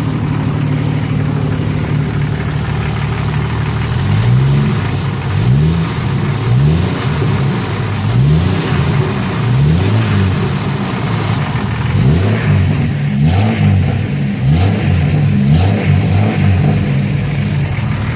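Jeep Cherokee XJ's 4.0-litre straight-six engine idling, then revved in short blips over and over, its pitch rising and falling with each one, before settling back to a steady idle near the end.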